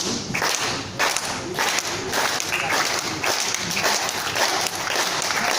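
Airguns firing on an indoor range: many sharp cracks from several shooters, close together and overlapping, over a dense patter of claps.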